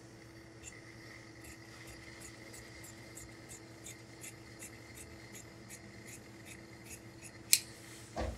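Large tailor's shears cutting through a coat's lining along the panel edge: a steady run of crisp snips, about three a second. Near the end comes one much louder sharp click, then a dull thump.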